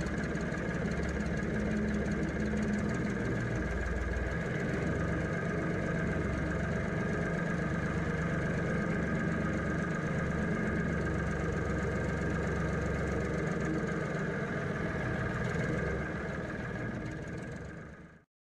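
Ford 4500 tractor-backhoe engine running steadily at an even speed, fading away near the end.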